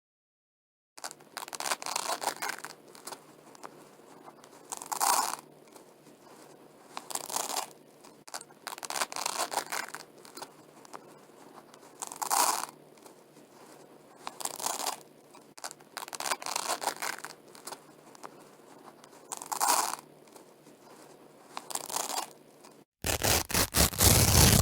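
Velcro strips being pulled apart, a crackling rip every two to three seconds, some long and some short and sharp, ending in a louder, longer burst near the end.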